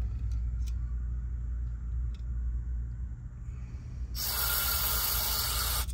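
Aerosol carburetor cleaner sprayed through a thin extension straw into the low-speed jet of a disassembled carburetor to flush it clean: a hiss starting about four seconds in and lasting nearly two seconds. Before it come a few light clicks, over a steady low hum.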